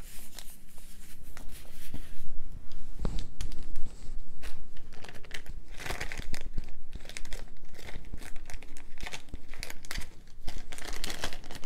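Packaging around a packet of beads crinkling and rustling as it is unwrapped by hand: an irregular run of crackles, with a dull knock about three seconds in.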